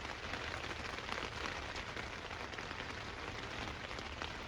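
Steady rain: an even patter of many small drops.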